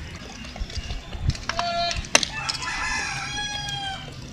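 A rooster crowing: a few short notes about one and a half seconds in, then one long held note that dips slightly in pitch near the end.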